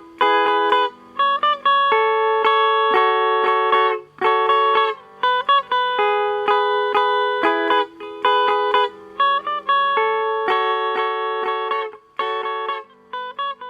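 Instrumental music: a bright lead melody of short, sharply started notes played over a simple bass line.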